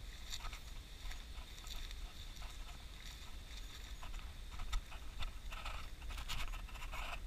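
Footsteps crunching on a gravel road, irregular and busier in the second half, over a steady low wind rumble on the microphone.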